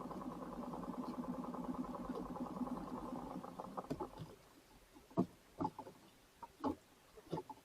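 Small boat engine running steadily, with a pulsing hum that fades away over the first four seconds, followed by scattered short knocks.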